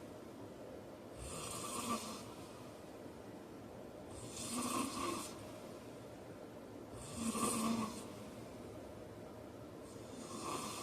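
A man snoring in his sleep: four breathy snores, one about every three seconds.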